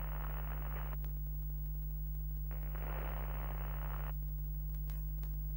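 A steady low electrical hum, with a burst of static hiss that stops about a second in and a second burst from about two and a half to four seconds in.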